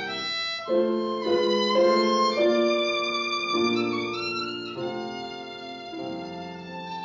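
Background music: a violin playing a melody, each note held about half a second to a second.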